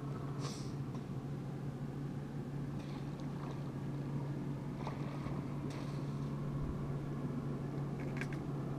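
Steady low drone of a distant boat engine, with a few faint short clicks and rustles.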